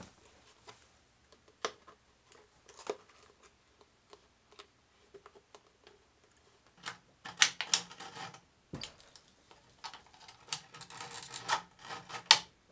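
Plastic bottle worked through a homemade strip cutter of two sharpened ball bearings: a few faint clicks, then from about seven seconds in, irregular clicks and crinkly scraping as the bottle wall is sliced into a long strip.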